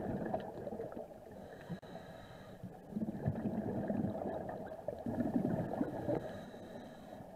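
Muffled underwater water noise picked up through a camera housing: irregular swishing and gurgling, with louder surges about three and five seconds in.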